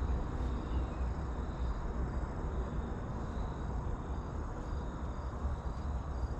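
Outdoor ambience: a steady low rumble with faint insects chirping.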